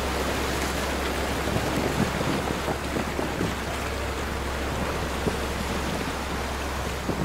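Wind and sea water washing around boats lying alongside each other, over a low, steady engine hum, with a few light knocks of people and gear moving on the longboat's deck.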